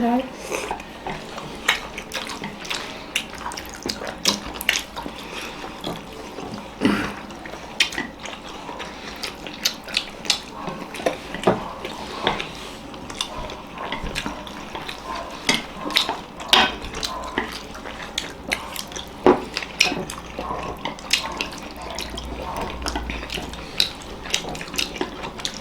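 Chopsticks clicking and tapping against plates as momos are picked up and eaten, with many short irregular clicks throughout.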